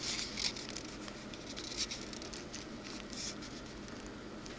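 Soft rustling and crinkling of a paper model-kit decal sheet being handled in the fingers, in short scattered bursts: a cluster right at the start, another just under two seconds in and one a little after three seconds.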